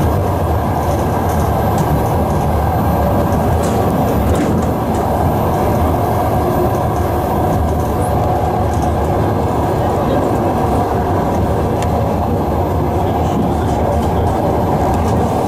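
ED9E electric multiple unit running at speed, heard from inside the passenger car: a steady rumble of wheels on rails, with a few faint clicks.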